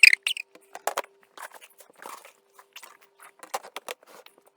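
Dry dog food kibble clicking and crunching in irregular bursts, over a faint steady hum.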